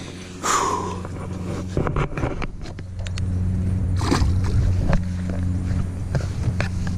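A released largemouth bass splashes into the pond about four seconds in, amid handling clicks and rustles, over a steady low hum.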